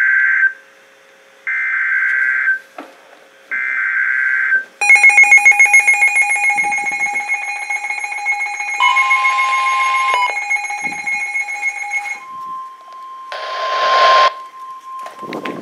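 Emergency Alert System tones from a NOAA Weather Radio broadcast. It opens with three short warbling data bursts, the SAME header, followed by a loud pulsing electronic alarm of several tones. Near the end comes the steady 1050 Hz weather-radio warning tone, interrupted by a brief burst of noise.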